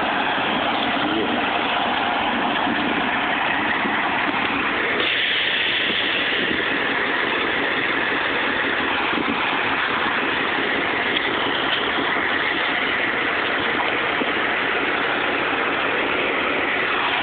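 Fire engine idling with a steady, even drone.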